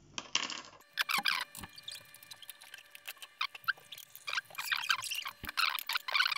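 Small parts of a disassembled GoPro Hero 7 Black, its lens module and circuit board, handled by hand: an irregular run of light clicks, taps and brief scrapes of plastic and metal.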